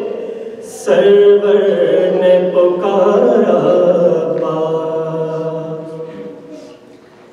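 A man's unaccompanied voice chanting a line of an Urdu devotional poem in long, drawn-out notes. It breaks briefly for a breath just before a second in, then sings one long phrase that fades away near the end.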